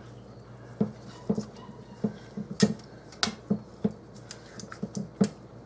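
A spatula stirring a thick cream-of-chicken-soup sauce in a stainless steel mixing bowl, knocking and scraping against the bowl's sides about twice a second, starting about a second in. A faint steady low hum runs underneath.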